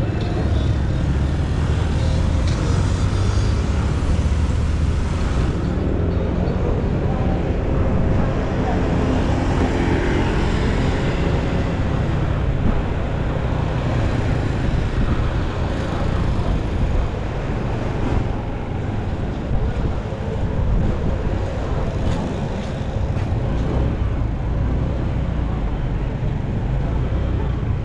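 Motorcycle on the move: a steady low engine rumble and road noise, with street traffic around it.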